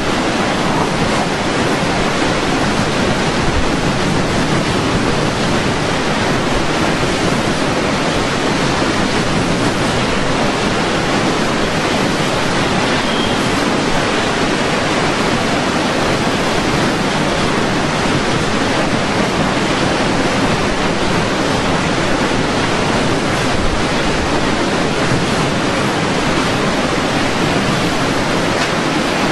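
Hurricane storm noise: a steady, loud, unbroken rush of wind and water, even from low to high pitches.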